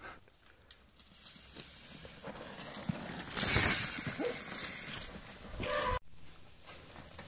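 Mountain bike tyres rolling and skidding through loose dirt on a trail. The noise builds to a loud rush about three and a half seconds in.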